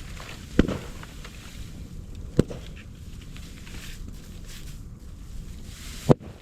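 Moso bamboo burning in an open fire, crackling steadily, with three loud sharp bangs: about half a second in, about two and a half seconds in, and near the end. The bangs are sealed bamboo sections bursting in the heat.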